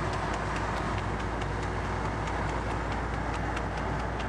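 Steady engine and road rumble of a vehicle driving along a road, with a light, regular ticking about three times a second.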